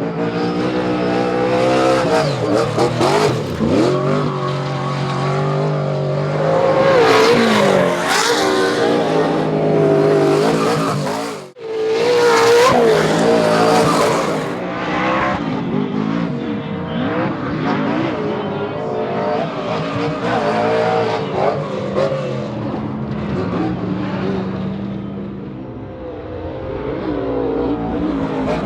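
Pro 2 short-course race truck V8 racing engines at full race pace, revving up and dropping through the gears, with more than one engine heard at times. The sound cuts out for a moment about eleven seconds in, then comes back loud.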